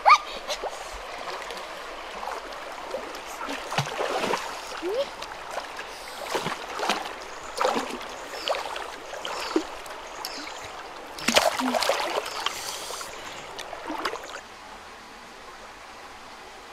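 River water splashing and sloshing around a person wading waist-deep, a string of irregular splashes with the loudest run about two-thirds through. Near the end the splashing stops, leaving a steady rush of flowing water.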